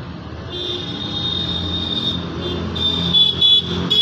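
Street traffic with vehicle engines running and a steady high tone, broken near the end by several short, loud vehicle horn honks.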